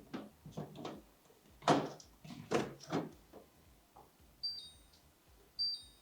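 Plastic food containers knocking and clattering as they are taken out of and handled at an open refrigerator. Near the end come two short high electronic beeps about a second apart, a fridge's door-open alarm.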